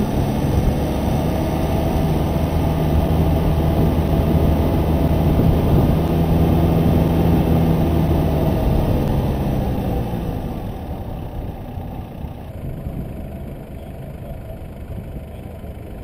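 A 4WD's engine and road noise while driving, a steady low engine hum. About ten seconds in the engine eases off and the sound fades to a quieter steady rumble as the vehicle slows.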